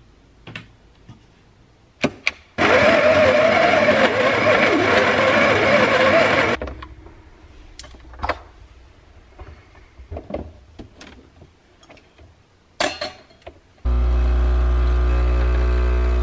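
Espresso machine's built-in burr grinder grinding coffee beans for about four seconds, followed by clicks and knocks of the portafilter being handled. Near the end the machine's pump starts and buzzes steadily as espresso pours.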